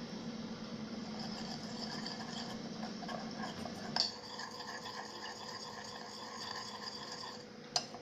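Steel spoon stirring and scraping in a bowl, mixing powder and water into a smooth paste, with light rapid clinks; a sharp click about halfway through and another near the end.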